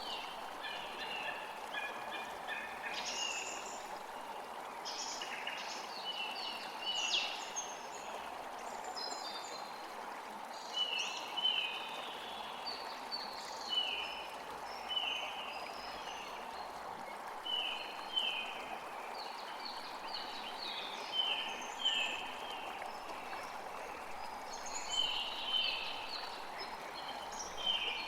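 Steady rushing wind with many small birds chirping throughout, in short, quick falling notes.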